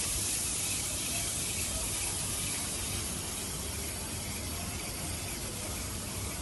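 Water running steadily, a constant even rush that starts abruptly.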